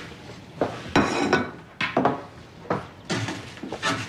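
Dishes and cutlery being set down on a table: a series of separate clinks and knocks, the loudest about a second in.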